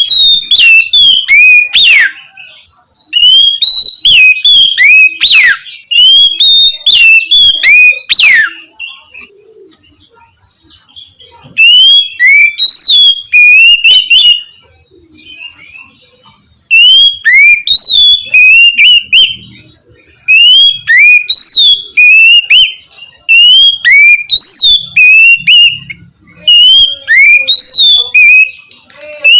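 Oriental magpie-robin singing its loud, clear whistled 'ngeplong' song: rapid sliding whistled notes in bursts of several seconds, broken by short pauses.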